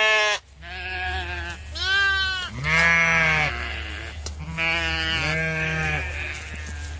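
Sheep bleating: a series of about five wavering calls, one after another, over a steady low rumble.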